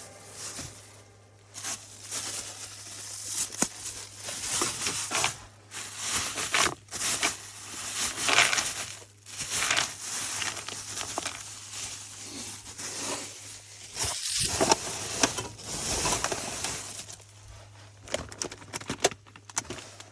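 Irregular rustling and crinkling in uneven bursts, like something being handled close to the microphone, over a faint steady low hum.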